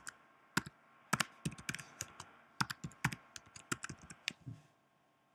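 Typing on a computer keyboard: a quick, irregular run of key clicks that stops about four and a half seconds in.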